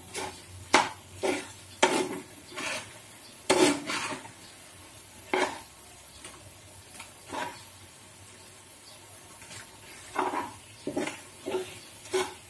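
Spatula knocking and scraping against a nonstick frying pan as pasta in sauce is stirred and tossed, in irregular strokes with a lull in the middle.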